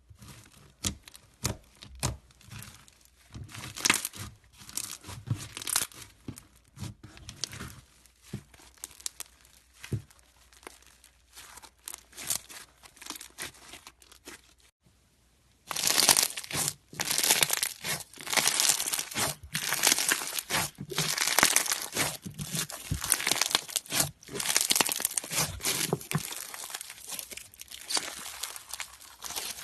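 Slime being squeezed and stretched by hand, crackling and popping with quick sharp clicks. Sparse and soft at first, then after a brief pause about halfway it turns louder and denser.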